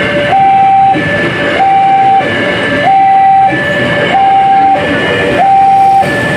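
A level crossing's electronic warning alarm sounds a repeating two-tone signal, alternating high and low, each tone held about half a second. Under it is the steady running noise of an electric commuter train's cars passing close by.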